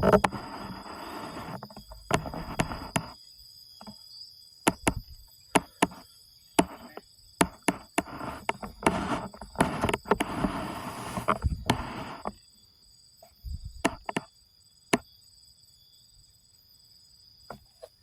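Steady high-pitched insect drone, with bursts of rustling and a scatter of sharp clicks and knocks close to the microphone. These die away after about twelve seconds.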